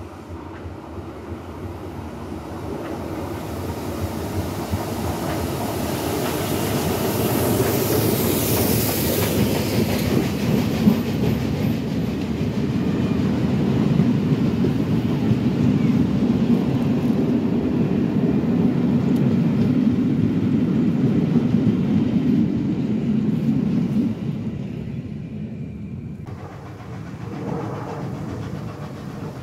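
Steam-hauled passenger train approaching and passing close by, with a hiss of steam as the locomotive goes under. The coaches follow, rumbling and clacking over the rail joints. About three-quarters through, the sound drops abruptly to a quieter, more distant train.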